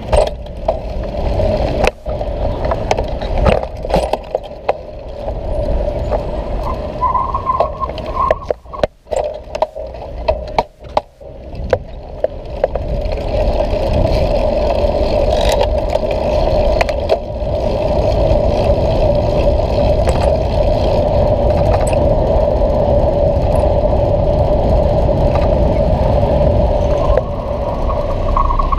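Riding a bicycle through city traffic: low rumble and wind on the microphone, with the bike rattling in sharp clicks over the pavement. A steady hum runs underneath and grows louder about halfway through.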